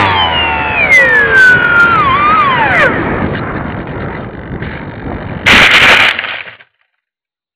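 RC model airplane's motor and propeller whining and falling steadily in pitch as it slows, with rushing wind noise on the onboard microphone. About five and a half seconds in, a short, loud rustling crash as the plane hits the grass, then the sound cuts off abruptly.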